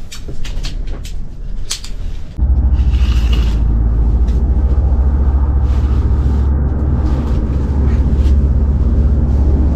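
A few light clicks and knocks of handling, then about two and a half seconds in a loud, steady low rumble of wind buffeting the microphone starts abruptly and continues.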